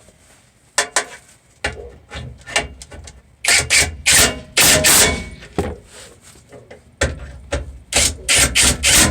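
Irregular knocks, clanks and rubbing sounds from hand work with tools and parts, typical of a cover being refitted and wiped down.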